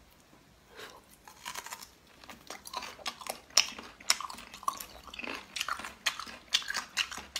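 A person biting and chewing braised beef tendon close to the microphone: irregular wet smacks and clicks of the mouth, starting about a second in and growing busier.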